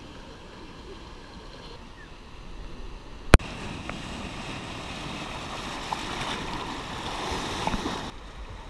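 Ocean surf breaking over the rocks and rushing into a seawater pool, the churning water swelling louder over several seconds and cutting off suddenly near the end. A single sharp click about a third of the way in.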